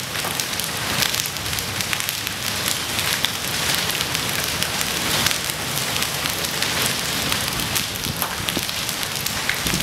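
Hail pelting wet pavement and puddles: a dense steady hiss studded with many sharp little ticks of hailstones striking.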